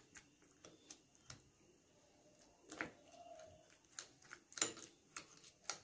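Wire masher mashing soft roasted eggplant in a glass bowl: faint, irregular clicks and taps of the metal against the glass, with a little soft squishing.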